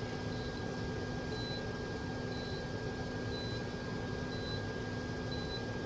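Induction stovetop running: a steady low hum comes on right at the start over a steady high whine, with faint short pips about once a second.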